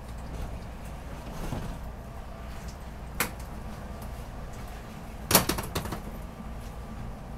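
Steady low hum of a stopped SEPTA regional rail train car, with a single sharp click about three seconds in and a quick cluster of loud knocks a couple of seconds later.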